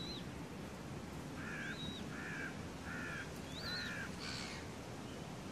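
Birds calling over a steady background hiss: a thin, high arched call recurring about every two seconds, and a run of four lower, harsher notes in quick succession through the middle.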